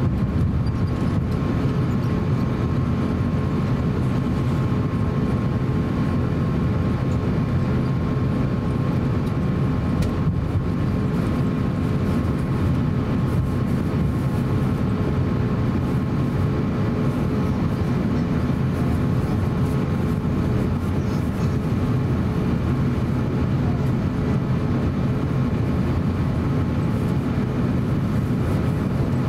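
Cabin noise of an Airbus A350-900 taxiing: a steady low rumble from its Rolls-Royce Trent XWB engines at taxi power and the rolling airframe, with a couple of faint steady hums above it.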